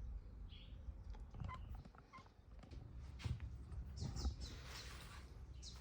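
Faint wood-on-wood handling as a pine drawer side is pushed onto a plywood base panel: a few light knocks and clicks, short squeaks, and a brief scraping rub about four seconds in.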